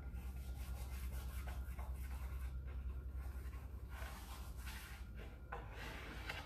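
Fingertips rubbing and pressing a rub-on decor transfer down onto a grooved, distressed wooden board, smoothing out air bubbles. Soft, irregular scratchy strokes that come in quicker clusters near the end, over a low steady hum.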